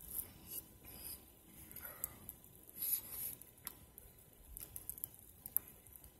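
A metal spoon scraping and clinking in a metal camp pot while eating: a scatter of short scrapes and sharp clicks.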